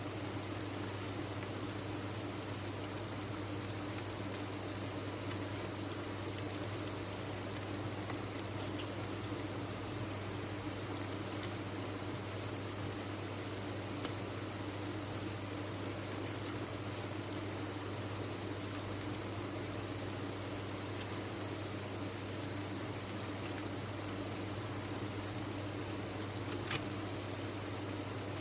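A dense chorus of many farmed crickets chirping at once, merging into one steady, unbroken high-pitched trill.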